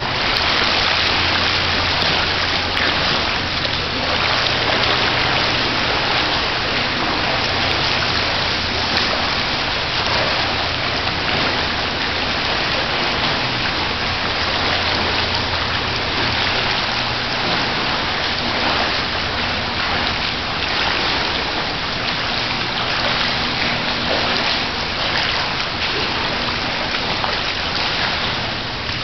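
Pool water splashing and churning from a swimmer's front-crawl arm strokes and kicks, a steady wash of sound, with a low steady hum underneath.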